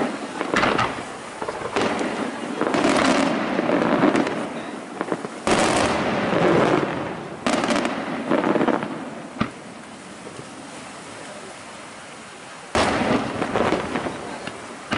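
Aerial firework shells bursting one after another, each bang trailing off in a long rolling echo. After about ten seconds of repeated bursts comes a lull of a few seconds, then another shell bursts near the end.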